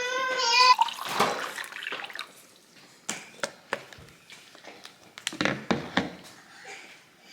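A toddler's short high squeal, then water pouring and dripping into a cup, with a few light knocks of cups.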